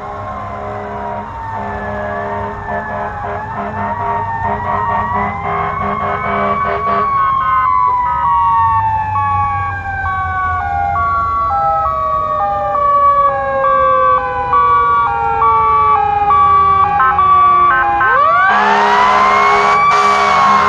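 Fire truck sirens on an emergency run. A Federal Q2B mechanical siren wails, then winds down slowly and steadily for about ten seconds from roughly seven seconds in, and spins back up sharply near the end. Over the wind-down an electronic siren alternates between two tones in a high-low pattern.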